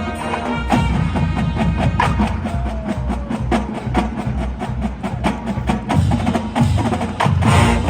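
Marching band playing a metal arrangement: a fast, busy percussion passage of rapid sharp strikes over a sustained low band sound, with the full band swelling louder near the end.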